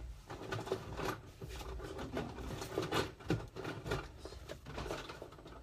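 Irregular clicks, light knocks and rustling from things being handled close to the phone's microphone.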